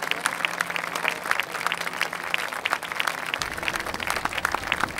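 Audience applauding: many people clapping steadily at the end of a film screening.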